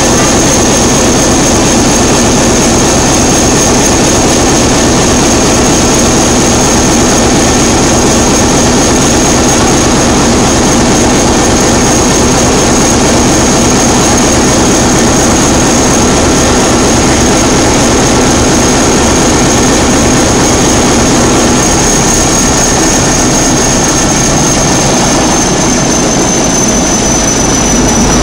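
Large MAN inline multi-cylinder diesel engine running steadily at a loud, even pace, with a high whistle over the engine noise that drops slightly in pitch near the end.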